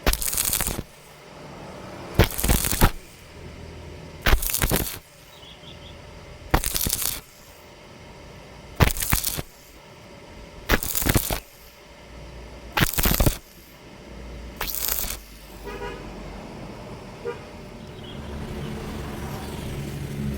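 Electric arc welding done in short stitches: the arc's crackling hiss starts and stops eight times, each burst lasting under a second, about every two seconds. Near the end the arc stops and a lower, steady hum remains.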